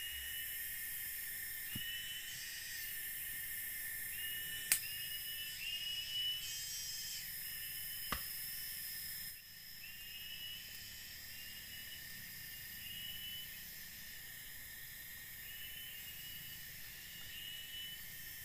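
Rainforest insects droning steadily at a high pitch, with short chirps repeating about once a second. Three sharp knocks break in during the first half, the loudest about five seconds in.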